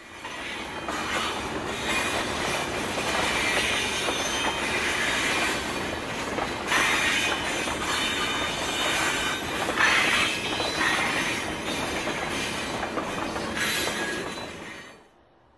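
Recorded freight train passing, its wheels running on the rails with steel-on-steel noise that surges a few times. It cuts off abruptly near the end.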